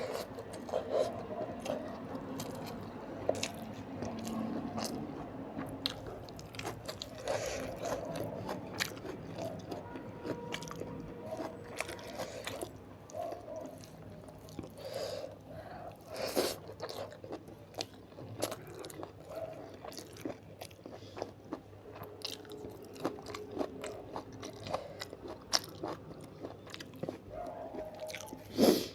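Close-miked eating of an Indian meal (rice, palak paneer, onion salad, pickle): steady chewing with irregular sharp crunches and wet mouth clicks, and one louder click near the end.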